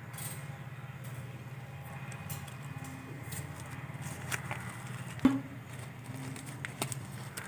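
Handling noise of small objects: scattered light clicks and rustles as a small red box and a little basket are fitted together by hand, with one sharper knock about five seconds in, over a steady low hum.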